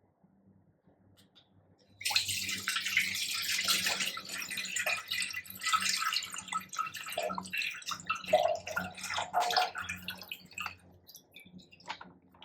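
Milk poured from a cut-open plastic milk packet. The splashing stream starts suddenly about two seconds in and runs strongest at first. It then turns uneven, with glugs and drips, as the packet empties.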